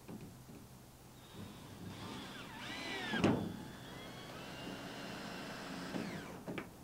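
Cordless drill driving a 2.5-inch screw into a greenhouse roof panel. The motor whine starts about a second in and bends in pitch under load around the middle, with one loud knock, then runs steadily and stops near the end.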